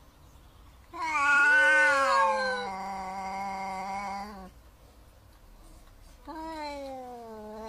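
Two cats in a face-off, yowling: one long drawn-out yowl starting about a second in that slides down in pitch and lasts some three and a half seconds, then a second yowl rising up near the end.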